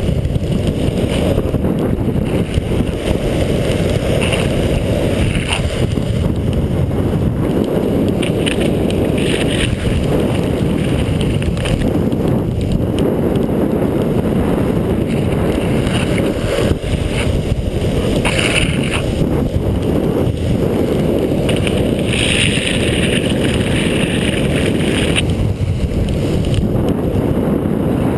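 Wind rumbling over a fast-moving camera's microphone, mixed with the hiss of longboard wheels rolling and sliding on wet asphalt. The rumble is steady and loud, with brighter hissing spells now and then.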